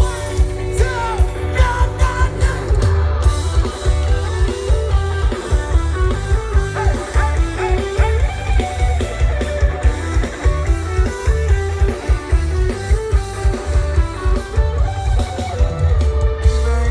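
Live rock band playing loud through a big outdoor PA: electric guitars over bass and drums with a steady, heavy beat, heard from within the crowd.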